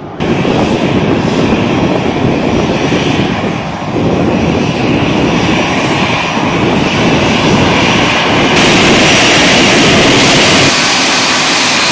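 Jet airliner's engines running at taxi power, a loud steady rush and whine. The sound steps abruptly in level and brightness a few times, about four and nine seconds in.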